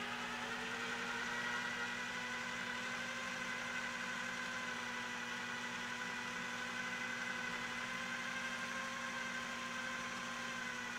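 Electric food processor running steadily on low speed, its motor giving a constant whir, as it blends chickpeas into hummus while liquid is added.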